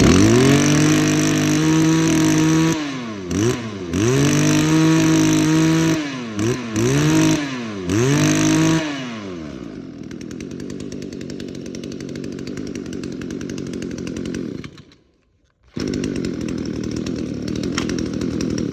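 Ryobi 22cc two-stroke brush cutter engine, just started, revved up to high several times with brief drops in between. Then it settles to a steady idle. Near the end the sound stops for about a second before a steady running sound comes back.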